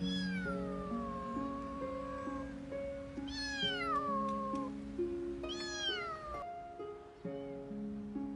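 Young kitten meowing three times, each a long cry falling in pitch, over steady background music.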